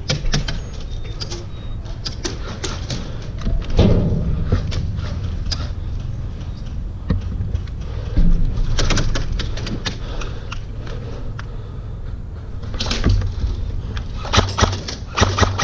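Airsoft gunfire: scattered sharp snaps over a steady low rumble, with a couple of heavier knocks, and near the end a quick, even run of snaps as an electric airsoft rifle fires.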